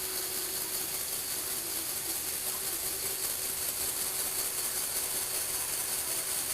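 A Lego Technic car's small electric motor driving its plastic gear train, running steadily.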